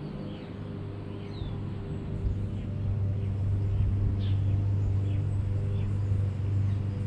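A steady low mechanical hum that grows louder about two seconds in, with short bird chirps scattered over it.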